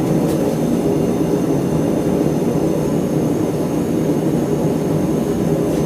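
Blacksmith's forge running: a steady, unbroken rushing noise like a jet or engine, with no hammer blows.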